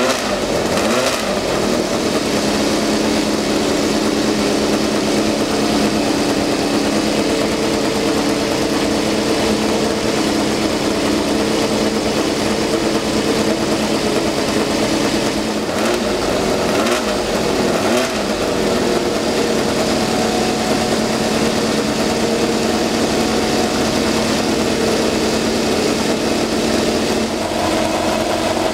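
Tyrrell 001's Cosworth DFV V8 racing engine idling at warm-up, with a short throttle blip about a second in and three more in quick succession a little past halfway. The idle rises slightly near the end.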